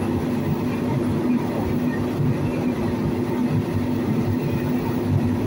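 A steady low mechanical rumble with a constant hum running through it.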